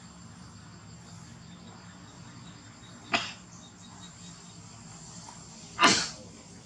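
Steady faint insect drone, with two short, sudden noisy sounds: one about three seconds in and a louder one near the end.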